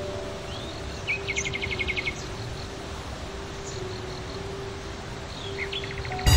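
A small bird's quick chirping trill, about ten notes in a second, about a second in, and a shorter trill near the end, over a steady outdoor hiss.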